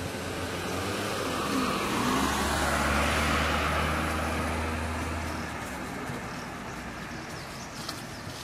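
A motor vehicle passing by: its engine hum and road noise swell to a peak about three seconds in, then fade away.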